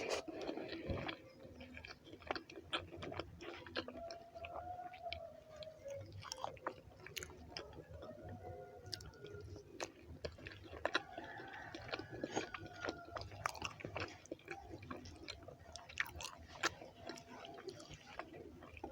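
Close-miked chewing and mouth sounds of someone eating rice and beans: many small, wet clicks and smacks at an irregular pace.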